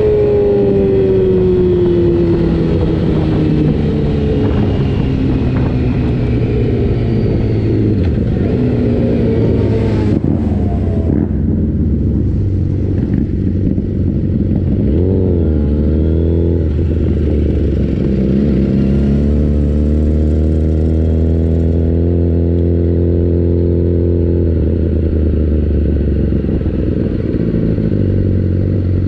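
Race motorcycle engine on board as the bike slows, its pitch falling as it decelerates, with wind rush that drops away about ten seconds in. It then runs at low speed with a couple of short throttle blips before settling into a steady low note.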